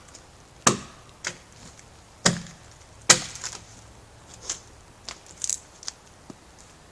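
Steel adze blade chopping into a red pine log to hew it flat. There are three hard strikes in the first half, then a run of smaller, quicker knocks.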